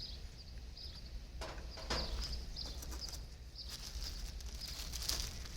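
Small birds chirping repeatedly over a steady low rumble, with two soft knocks about a second and a half and two seconds in.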